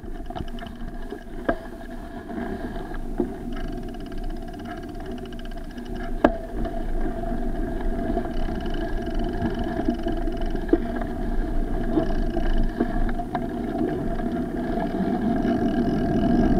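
Bicycle riding over rough gravel and pavement, heard through a bike-mounted action camera: a steady rumble and rattle of tyres and mount, with scattered sharp knocks from bumps. It grows louder near the end as the bike gathers speed.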